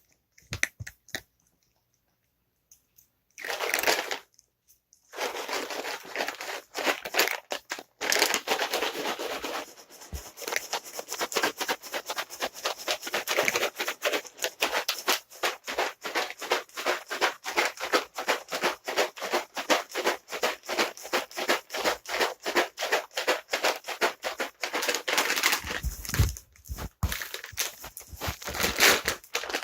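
Cat treats rattling in a container shaken by hand: a short burst of shaking, then fast, steady shaking at several shakes a second.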